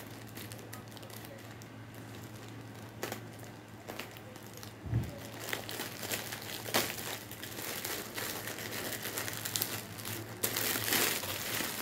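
Plastic courier mailer bag being cut with scissors and pulled open, its plastic crinkling in irregular crackles. The crackling grows louder and denser near the end as the clear inner plastic bag is handled. There is one low thump about five seconds in.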